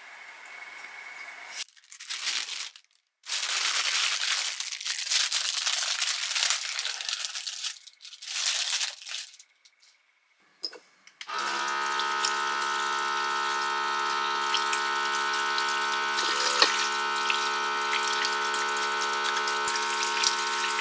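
A small battery-powered faucet pump running steadily, with a constant motor hum and water splashing into a steel basin as hands are washed under it; it switches off abruptly near the end. Before it, several bursts of rustling and handling noise.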